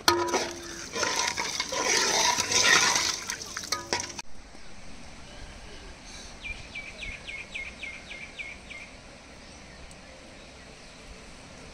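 A ladle stirring and sloshing thin, watery fish curry in a metal pot, loud and splashy for about four seconds before it cuts off suddenly. Then a quieter background, with a quick run of about ten high chirps in the middle.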